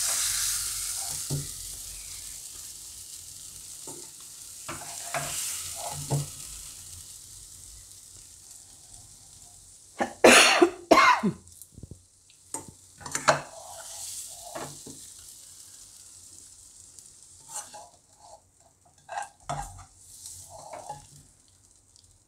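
Steel spoon stirring and scraping through banana and fenugreek curry in a hot nonstick kadai, with a faint sizzle from the pan fading over the first several seconds. A run of loud scrapes comes about ten seconds in, and a few more spoon scrapes and knocks follow near the end as the curry is dished out.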